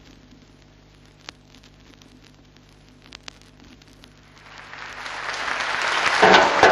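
A quiet pause broken by a few faint clicks, then audience applause welling up from about four seconds in and growing loud near the end.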